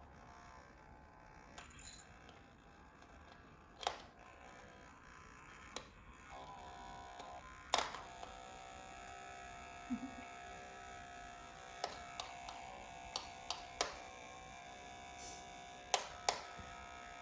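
A small electric nail trimmer buzzing steadily while filing a child's fingernails, with sharp clicks now and then.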